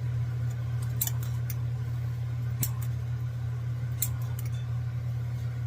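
Light metal-and-glass clicks and clinks of a vintage Campingaz gas lantern being twisted open to reach its mantle: a handful of sharp taps spread over several seconds. Under them runs the steady hum of an electric fan.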